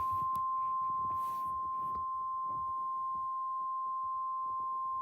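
NOAA Weather Radio warning alarm tone: one steady, high-pitched single-pitch beep held without a break. It is the alert that comes before a warning message, here a tornado warning.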